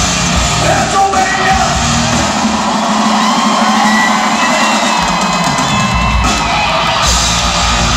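Live glam metal band playing loud in an arena, with drums and electric guitar, heard from among the audience. The bass and kick drum drop out for a couple of seconds in the middle, then the full band comes back in.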